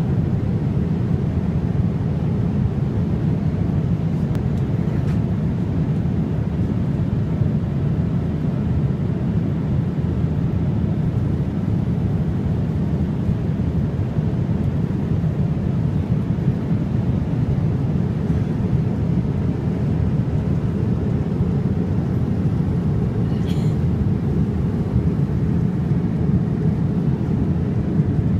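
Steady, low-pitched cabin noise of a Boeing 787-8 in cruise flight: airflow and engine noise heard from a passenger seat, even and unbroken.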